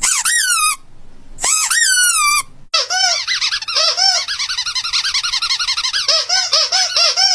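A cat mewing in high, squeaky cries: two long calls that rise and then fall, then a rapid run of short mews, several a second, until near the end.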